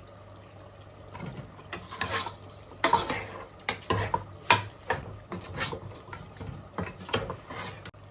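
A spoon stirring meat in a pot of pepper sauce, knocking and scraping against the pot in irregular strokes, the loudest about three and four and a half seconds in.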